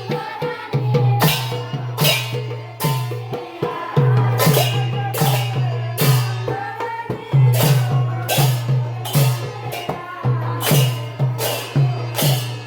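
Sylheti dhamail folk music: a steady low drum beat with sharp, bright percussive strikes repeating in rhythm.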